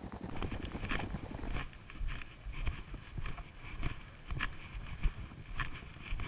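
Footsteps of a person walking on a pavement, with wind rumbling on the microphone. The background hiss drops away abruptly about a second and a half in.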